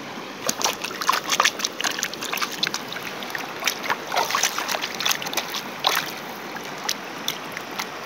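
Shallow stream running over stones, with irregular small splashes and gurgles of a hand moving in the water, thickest in the first couple of seconds and again midway, thinning out near the end.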